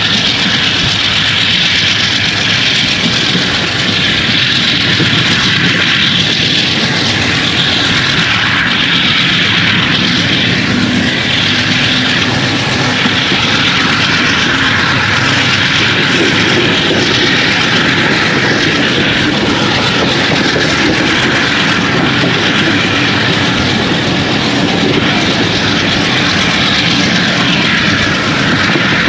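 Diesel-electric locomotive engine running loudly and steadily, a constant heavy engine drone with no change in pitch or level.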